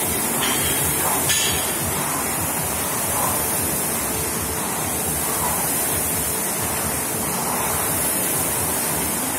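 Several air rowing machines' flywheel fans whooshing at once under hard rowing: a steady rushing, with faint swells as strokes are pulled. A short click about a second in.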